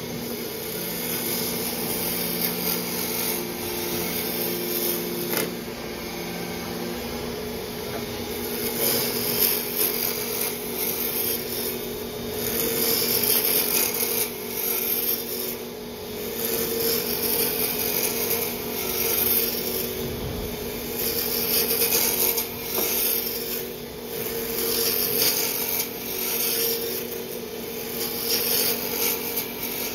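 Wood lathe running with a turning tool cutting a spinning mallet blank. A scratchy hiss of shavings comes off in repeated swells over the lathe's steady hum as the handle is roughed down to diameter.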